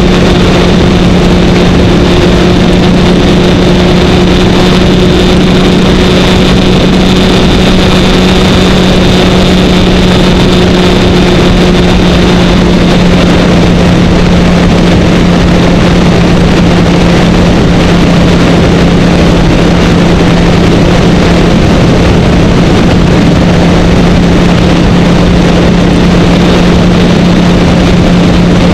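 Kawasaki Ninja 1000's inline-four engine running steadily at highway cruising speed, a constant engine tone under loud wind noise on the bike-mounted microphone.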